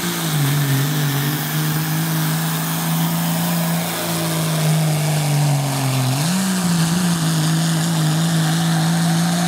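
Diesel pickup truck engine running hard under load while pulling a weight sled, a loud steady drone. Its pitch sags about half a second in and climbs back up around six seconds in.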